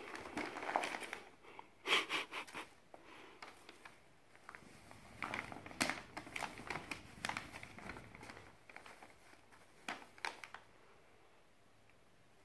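Brown paper bag crinkling and rustling in irregular bursts as a cat rolls on it and paws and grabs at it, going quiet near the end.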